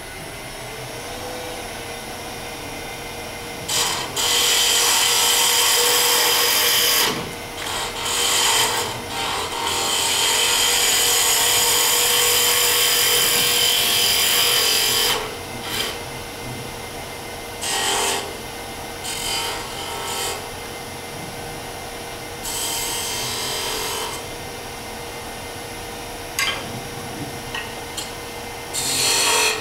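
Wood lathe running with a steady hum while a hand-held turning tool cuts the spinning spindle. The cut comes as a hiss in separate passes of a second to several seconds, the longest about ten to fifteen seconds in.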